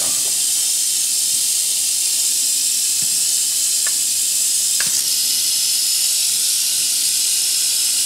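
Mojave rattlesnake rattling its tail in a continuous high buzz that never lets up: the defensive warning of a stressed snake.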